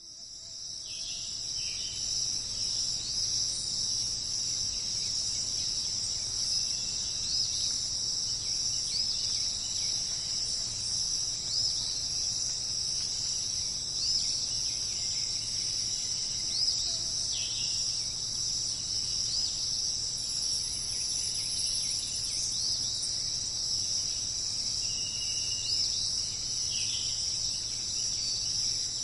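Dense, steady, high-pitched chorus of insects such as crickets, with a few short bird calls dropping in pitch heard now and then over it. The sound fades in over the first second.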